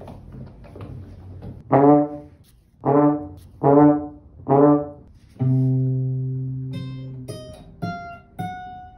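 Trombone played as a comic sound effect: four short blasts, then a long held, slightly lower note that slowly fades, like a sad-trombone 'wah-wah-wah-waaah'. Near the end come a few short, higher notes.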